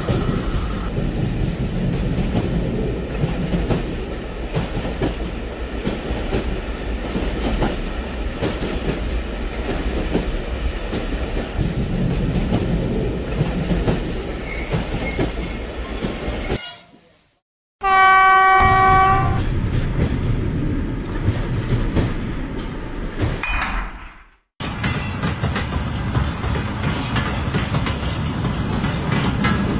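Electric model train running on its track, a steady rattle and rumble of small wheels and motor as a diesel locomotive and its boxcars roll past. About eighteen seconds in, the locomotive's built-in horn sounds for a little over a second; the sound also cuts out completely twice for a moment.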